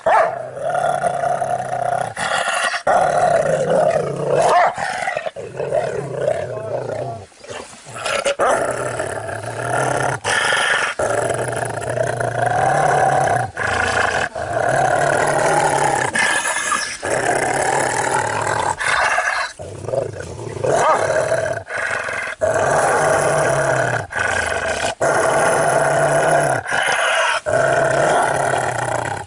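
Pit bull-type dog growling in long, steady rumbles of one to three seconds each, broken by short pauses.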